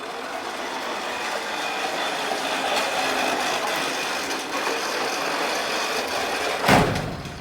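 Lawn mower running steadily, a mechanical whirr and rattle, with one loud thump near the end.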